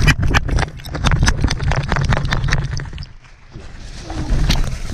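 Rapid, close thumps and rustling of a tracking dog running through brush and dry leaves, easing off about three seconds in, then a few scattered knocks.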